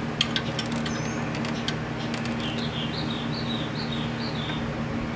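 Small metallic clicks and taps as hands work the hardware on a newly fitted alternator, over a steady low hum. In the second half a bird calls a quick series of short, high, falling chirps.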